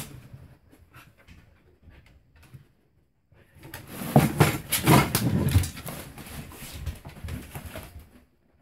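A Carolina Dog sniffing and snuffling as it noses among stored boxes and bags while hunting for rats. It is loudest in a spell of rapid bursts from about three and a half to six seconds in.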